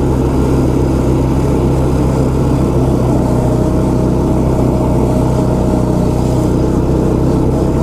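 Small kids' snowmobile engine running steadily.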